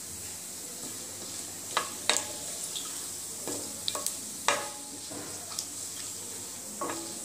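Tempering spices (urad dal, mustard seeds and cumin) sizzling in hot oil in a stainless steel pan while a wooden spatula stirs them. Several sharp clicks and knocks come over the steady sizzle.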